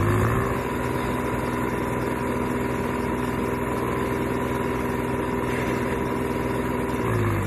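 Swaraj 744 FE tractor's three-cylinder diesel engine running steadily at raised revs with a fully loaded sugarcane trolley hitched behind. The pitch rises a little just at the start and falls back near the end.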